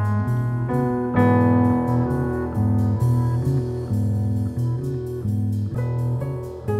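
Live instrumental music from a small ensemble: a strong low bass line moving in steady notes under sustained melody notes.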